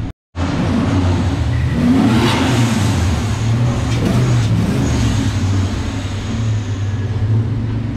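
Turbocharged Toyota 1UZ-FE V8 idling steadily, with a brief rise and fall in revs about two seconds in. The sound drops out for a split second just after the start.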